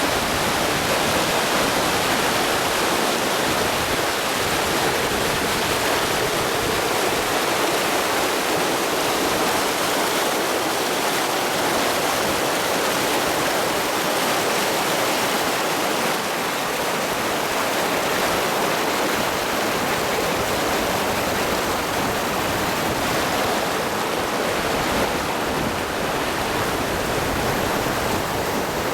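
Rushing water of a stream pouring over a small waterfall, a steady, even rush.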